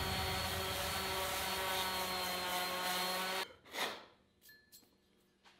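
DeWalt random orbital sander running on a laser-cut mild steel plate, a steady motor hum under the hiss of the pad on the metal, sanding off light rust and water spots as surface prep before powder coating. It cuts off abruptly about halfway through, followed by one short rustle.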